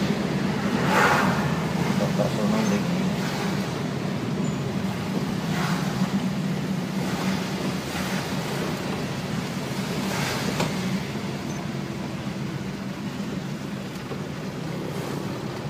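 Engine drone and tyre noise on a wet road heard from inside a moving vehicle's cab. Three brief swells of hiss come about a second, six seconds and ten seconds in.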